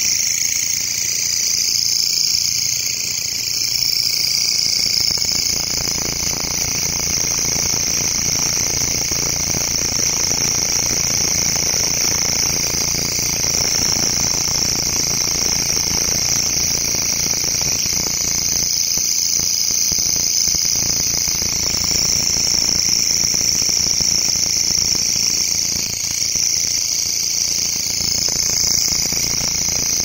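Katydid (long-horned grasshopper) stridulating: a loud, continuous high-pitched buzz that holds steady with only slight swells.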